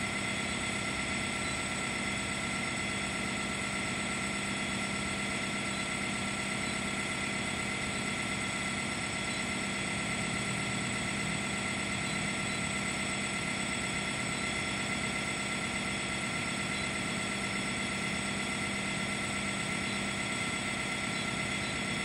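Steady drone of running machinery: an even hum with several held tones over a rushing noise, unchanging throughout.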